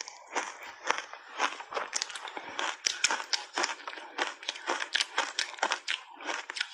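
Matcha-powder-coated refrozen ice being chewed, with rapid crisp crunches of the ice breaking between the teeth, about three or four a second.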